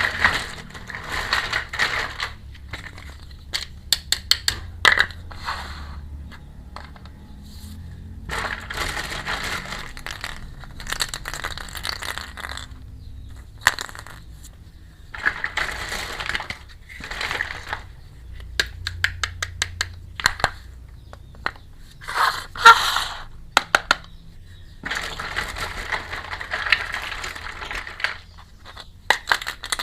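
Plastic packaging crinkling in repeated bursts of a second or two, between which small plastic toy pieces clatter and click sharply as they are handled.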